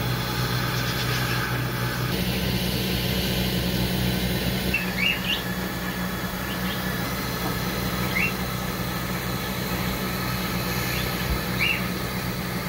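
Creality Falcon2 laser cutter running through a cut: a steady fan-and-motor hum over a noisy hiss, with a deeper hum tone joining about two seconds in and a few short high chirps.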